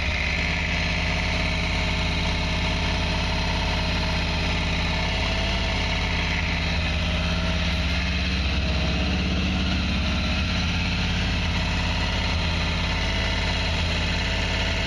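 Carbureted multi-cylinder motorcycle engine idling steadily while its carburetors are being synchronized, with an airflow meter held over the open carburetor intakes.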